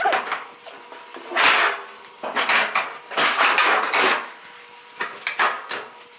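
Irregular knocks, clunks and scraping noises as a truck hood is handled and shifted by hand, with no steady running sound.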